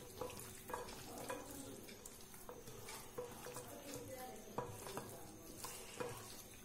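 Hand squishing and kneading chicken pieces in a wet masala paste in a glass bowl: faint, irregular wet squelches with light clicks.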